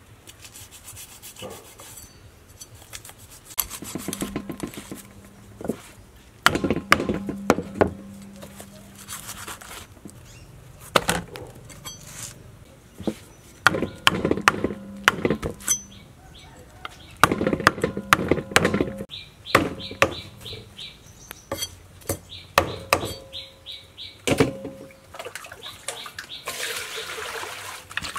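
Cleaver scraping the scales off a large Proma fish on a wooden chopping block: clusters of quick rasping strokes and knocks of the blade against the board, in bursts with short pauses between. Near the end, water splashing as the fish is washed by hand in a steel bowl.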